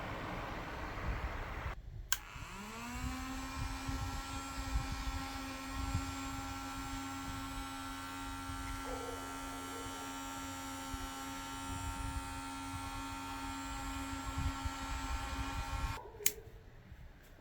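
Small electric motor of a homemade battery-powered mini ceiling fan spinning up with a rising whine about two seconds in, then running at a steady hum. A click comes just before it starts and another near the end, after a couple of seconds of rushing noise at the start.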